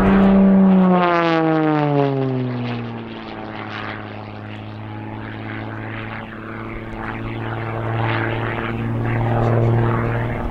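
Propeller engine of a Zivko Edge 540 V3 aerobatic plane, a six-cylinder Lycoming, flying overhead. Its tone drops in pitch over the first few seconds, then holds steady and grows a little louder near the end.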